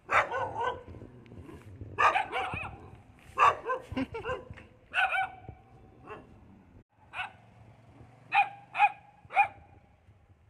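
Dogs barking in a standoff between stray desi dogs and a Rottweiler. The barks come in bursts every second or two, ending with three sharp barks in quick succession.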